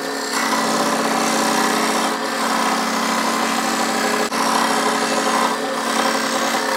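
Bench scroll saw running steadily as it cuts through a melamine board.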